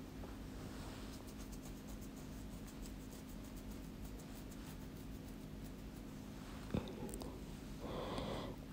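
Quiet room tone with a faint steady hum and light scratchy rustling, and a single small click about seven seconds in.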